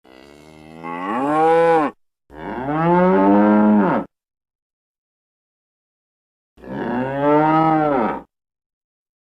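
Cow mooing three times, each moo about two seconds long and rising then falling in pitch, with dead silence between them; the first moo starts faint and swells.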